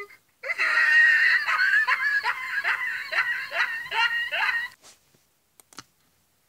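High-pitched cartoon laughter, a run of falling 'ha' strokes about three a second that lasts about four seconds and then stops. A few sharp clicks follow near the end.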